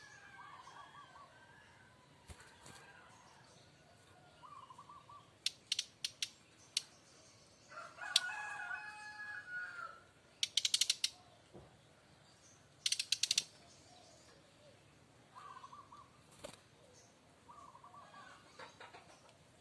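Brown-chested jungle flycatcher (Bali variety) giving short trilled notes and bursts of loud, crackling 'kretek' rattles, the aggressive fighting call that keepers prize. A rooster crows once in the background near the middle.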